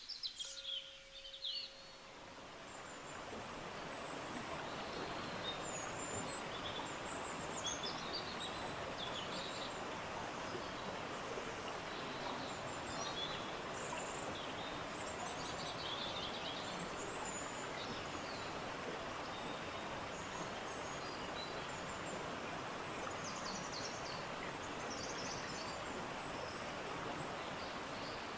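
Outdoor nature ambience: birds chirping over a steady background hiss, which fades in over the first few seconds.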